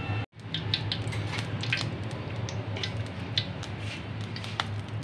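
Green cardamom pods crackling in hot desi ghee, with scattered small pops and clicks over a steady low hum.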